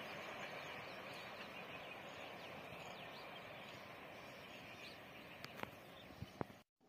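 Faint outdoor ambience: a steady hiss with a few faint bird chirps, then several sharp clicks near the end before the sound cuts off abruptly.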